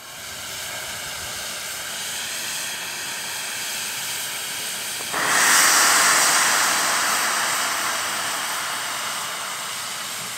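Steam hissing from the James Spooner, a Double Fairlie narrow-gauge steam locomotive, standing in the platform. About five seconds in, a sudden louder rush of steam starts and slowly eases off.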